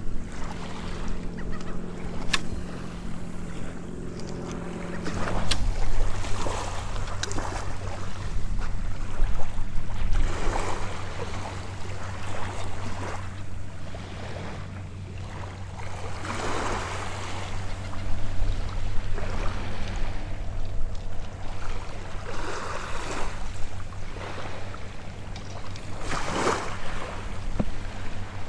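Small waves washing onto a sandy beach and wind on the microphone, swelling every few seconds, over a steady low hum of a distant motorboat engine that shifts pitch about five seconds in.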